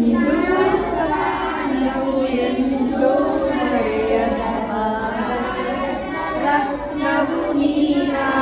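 A group of children singing together, a Kannada patriotic song sung by a small choir.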